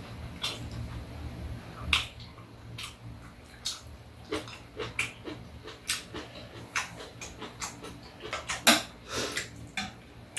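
Irregular small clicks and taps of chopsticks and a metal spoon against bowls and a plastic food container, mixed with the chewing and lip-smacking of people eating.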